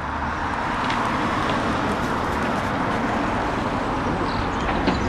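Steady vehicle noise: a continuous rumble and hiss that swells over the first second and then holds even.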